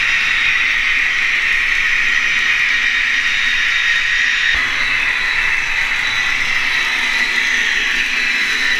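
Sound decoder of a Hobbytrain N-scale BR 110 model electric locomotive, playing its running sound through the model's small speaker as it pulls a train. The sound is steady and shifts slightly about halfway through.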